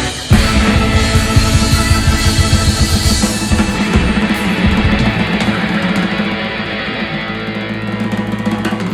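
Live rock band with Hammond organ, electric guitar and drums playing loudly. Past the middle the drums and cymbals thin out, and a low chord is held near the end.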